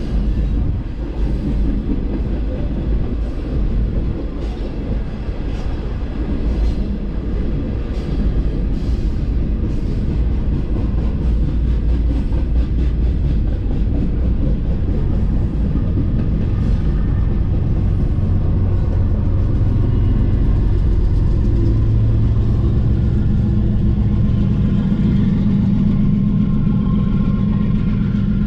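Freight train of hopper cars rolling past with a steady rumble, wheels clicking over the rail joints in the first part. Partway through, a low diesel drone builds and grows louder: the rear pusher locomotives coming up.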